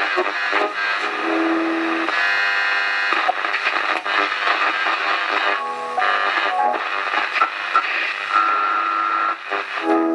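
Music playing through the small speaker of an early-1970s Hong Kong transistor clock radio, thin with no bass. The set is working again after its capacitors were replaced.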